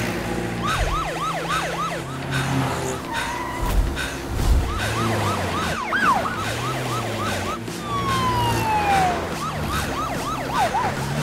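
Police car sirens in a fast rising-and-falling yelp, several overlapping, with one tone sliding down about eight seconds in.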